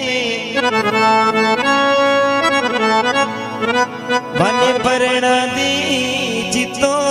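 Harmonium playing a bhajan melody over steady held notes, with a few sliding notes about four seconds in.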